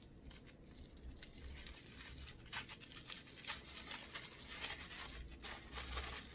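A small sealed paper envelope being opened by hand: faint, irregular crackling and crinkling of paper.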